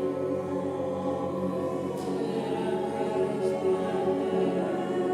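A group of voices singing long held tones together, many pitches sustained and layered into a steady chord: sound-healing toning.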